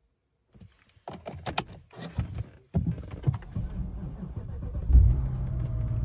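A few key clicks and rattles, then a BMW E60's starter cranks the engine for about two seconds. The engine catches about five seconds in and settles into a steady idle: the start is allowed again now that the DME-CAS adjustment has cleared the EWS immobiliser fault.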